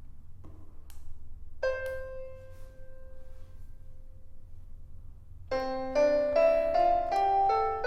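EASYPLAY 1s digital keyboard playing a piano sound. After a couple of faint clicks, a single note sounds about a second and a half in and rings out slowly. From about five and a half seconds in, a quick run of notes plays over a low held note.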